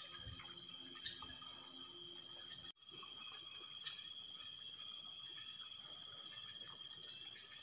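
Faint, steady, high-pitched chorus of night insects trilling from the shore, with a few tiny clicks. It cuts out for an instant a little under three seconds in.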